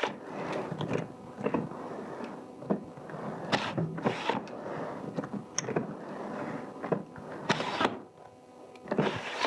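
Rovin Ecospin hand-cranked portable washing machine being spun during a rinse. The plastic drum churns water and clothes in uneven swells, and the loose lid shifts back and forth as it turns.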